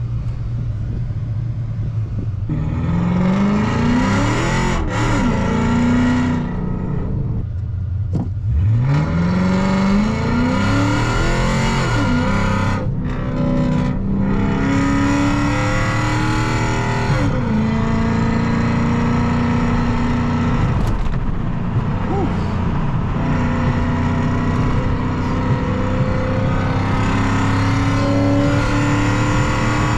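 Chrysler 300C's 5.7 L HEMI V8 with a catless exhaust, accelerating through the gears. The revs climb and drop several times as it shifts, then settle into a steadier run with the pitch slowly rising.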